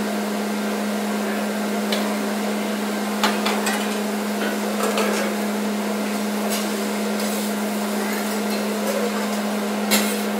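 Hibachi chef's metal spatulas clacking and scraping on a hot teppan griddle, in irregular sharp knocks, the strongest near the end, over a steady hum and hiss.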